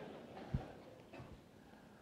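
Quiet hall room tone during a pause in the talk, with a single soft, low thump about half a second in.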